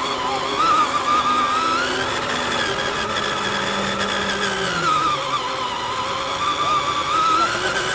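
Electric drive motors and gears of a Tamiya TXT-1 RC truck whining as it drives, picked up on board the truck. The whine wavers up and down in pitch, with a lower tone sliding down about halfway through.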